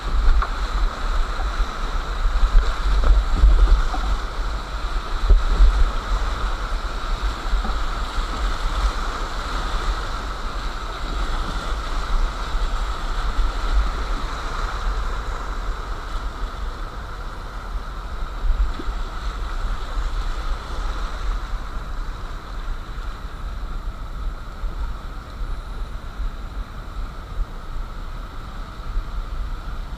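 Rushing whitewater of a fast mountain river, heard from a kayak running the rapids, with a deep, uneven rumble of wind and buffeting on the action camera's microphone. It is louder over the first six seconds or so, then settles to a steadier wash.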